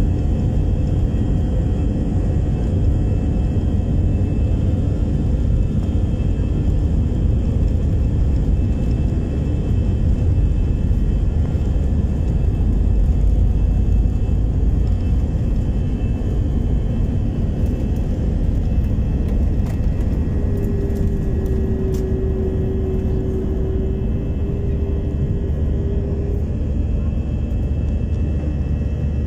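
Jet airliner engines at takeoff thrust, heard from inside the cabin: a loud, steady rumble as the plane rolls down the runway and lifts off.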